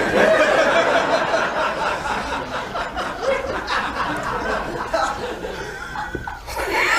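Studio audience laughing, many voices at once, easing off about six seconds in.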